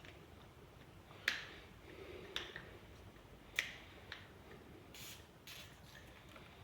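Sharp clicks from small parts being handled during a repair: three crisp clicks about a second apart, a softer tick just after the third, then a couple of faint rustles.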